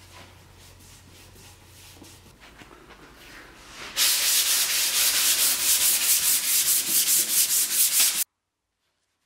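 Hand sanding painted wood with sandpaper, back-and-forth strokes. The strokes are faint at first, then about four seconds in become loud and fast, around five a second, and cut off suddenly about a second before the end.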